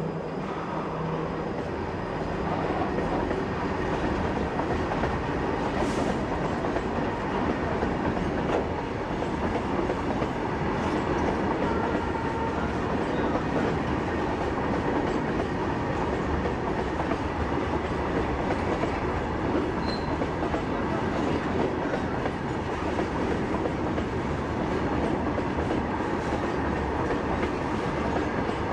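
Freight train of BOXN covered wagons rolling past at steady speed, wheels clattering over the rails.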